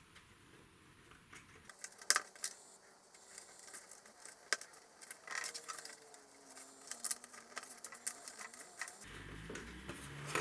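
Scattered light clicks and taps of thin wooden kit pieces being handled and pressed into place while a wooden marble run is assembled. The sharpest click comes about two seconds in.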